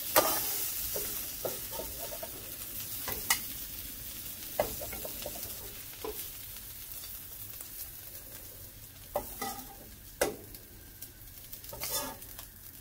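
Shrimp sizzling in butter in a frying pan as a stainless slotted spoon scoops them out, with several sharp clinks and scrapes of the spoon against the pan. The sizzle dies down gradually.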